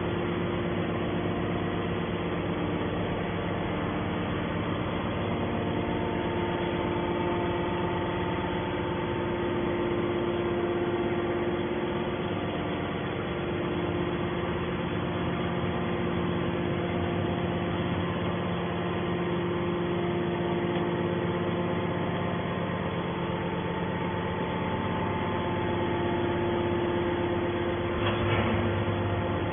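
Hydraulic can baler's motor and pump running with a steady hum, holding several steady tones.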